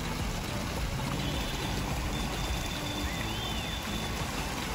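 Steady rushing noise with no clear pattern, and a faint short high chirp that rises and falls about three seconds in.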